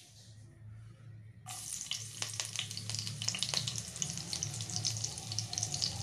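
Chopped green chillies dropped into hot ghee in a pan, setting off a sudden sizzle about one and a half seconds in that keeps crackling and spitting.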